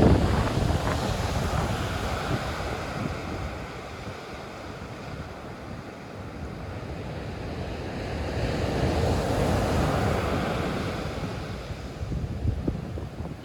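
Sea waves breaking and washing up the beach, one surge swelling up in the second half and easing off, with wind buffeting the microphone as a low rumble.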